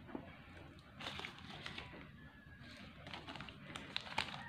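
Quiet room tone with a few faint scattered clicks and taps.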